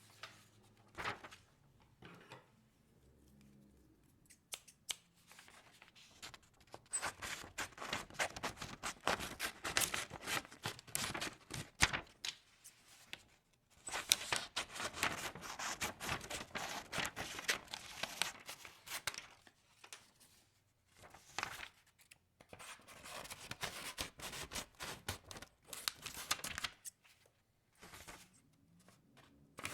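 Sheets of white printer paper worked by hand, making crisp tearing and crackling sounds in several dense bursts with short pauses between them.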